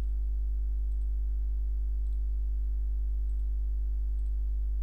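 Steady low electrical hum with a stack of even overtones, unchanging throughout.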